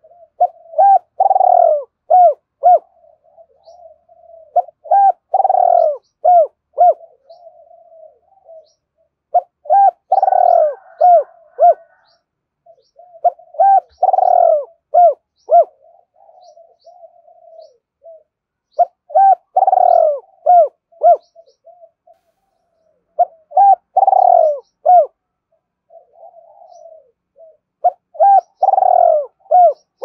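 Spotted dove singing its cooing song, a phrase repeated about every four to five seconds, each a strong coo followed by a few short, clipped notes. It is the male's calling and challenge song.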